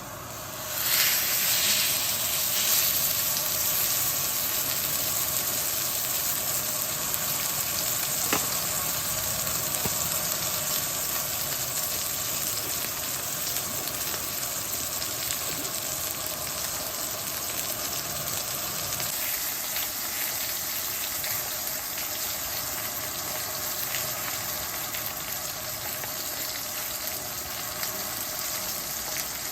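Food sizzling in a hot pan, starting suddenly about a second in and staying loud and steady.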